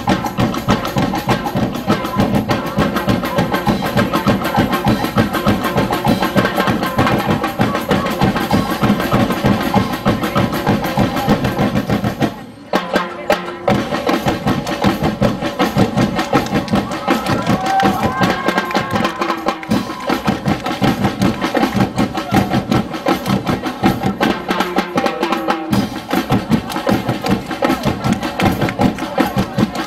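Street-dance festival music from a fast percussion ensemble, drums with sharp wooden knocking over some held tones. It breaks off briefly about twelve seconds in, then picks up again.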